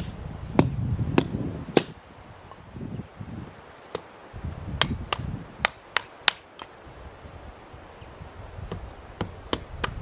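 Small hatchet splitting kindling against a rock: a series of sharp wooden knocks, some coming in quick runs of two or three a second, with short pauses between runs.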